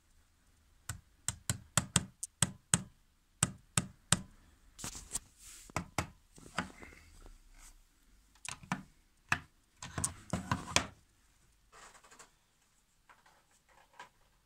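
Handling of a DeLonghi cordless vacuum's removable battery pack and its charging base: a quick run of sharp plastic clicks and knocks in the first few seconds, then scraping, rustling handling sounds.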